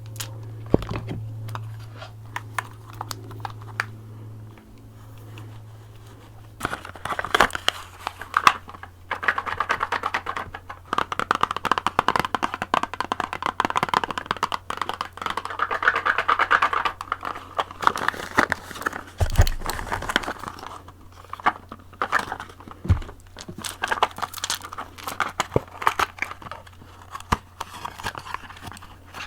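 Wax crayons scratching and rubbing across a surface close to the microphone, with frequent taps and clicks. A low steady hum and scattered clicks fill the first six or seven seconds, then the scratching starts and goes on in strokes with short pauses.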